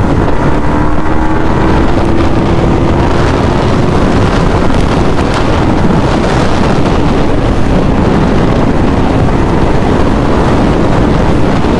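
Heavy wind rush on the microphone from riding at speed, over the steady drone of a Yamaha MT-15's 155 cc single-cylinder engine under way, its note drifting slightly lower across the stretch.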